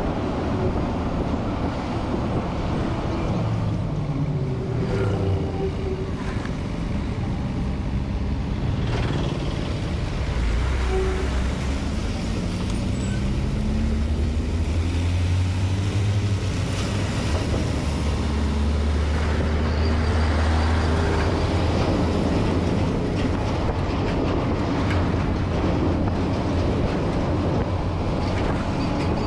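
Road traffic heard from a moving vehicle as loaded diesel tipper trucks pass close by. A continuous engine and tyre rumble runs throughout, with engine pitch rising and falling in the first half. A deep heavy rumble swells through the middle as a truck goes by close.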